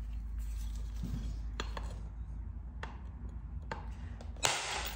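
Edge of a heat-treated chert knife preform being abraded with a hand abrader, a light scratching with a few small clicks. About four and a half seconds in, one sharp percussion strike on the platform knocks a flake off.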